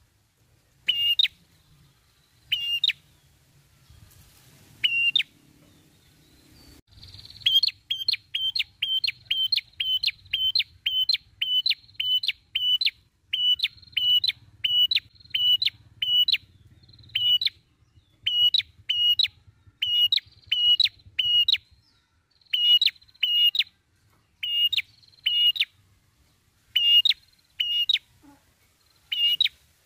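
Red-headed prenjak calling: sharp, high chip notes. They come a second or two apart at first, speed up about seven seconds in to a quick even run of about two a second, then break into irregular pairs and short runs.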